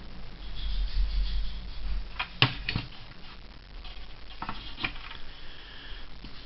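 Small hard objects handled close to the microphone: a low rumbling bump at first, then a few sharp clicks and taps in two short groups, about two seconds apart.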